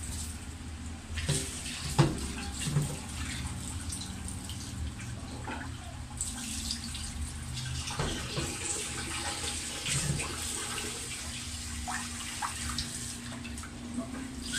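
Tap water running and splashing into a plastic basin in a stainless steel sink as raw fish pieces are rinsed by hand, with a few knocks of the basin against the sink, the loudest about two seconds in. The water noise grows fuller about six seconds in.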